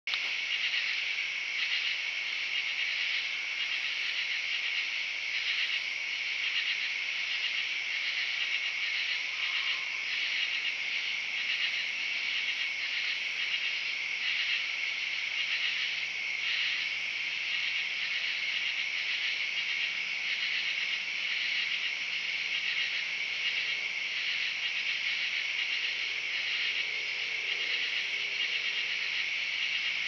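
Steady, dense chorus of night-singing insects, a high pulsing trill that never lets up. A faint low hum joins about halfway through.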